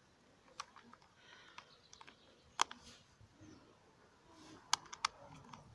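Scattered sharp clicks and taps from hands working the chain-tensioner area of a Husqvarna e-series chainsaw, which is not running. The loudest click comes about two and a half seconds in, with three quick ones near the end.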